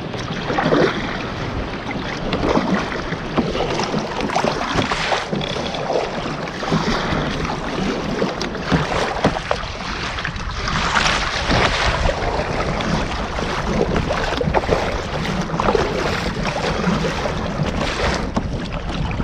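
Double-bladed paddle strokes on a sit-on-top fishing kayak, the blade dipping and pulling through the water on alternate sides about every two seconds, with water washing along the hull and wind buffeting the microphone.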